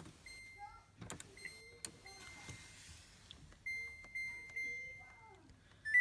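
Samsung WW8500 washing machine control panel beeping as the program selector dial is turned: a series of about six high electronic beeps of one pitch, with a few clicks from the dial.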